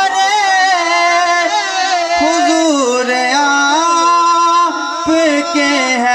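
A man singing a devotional manqabat, drawing out long held notes that slide up and down, with no clear words.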